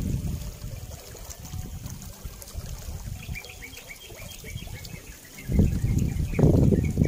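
Wind buffeting an open-air microphone as a low, uneven rumble that swells into loud gusts near the end, with a run of short, high bird chirps from about halfway through.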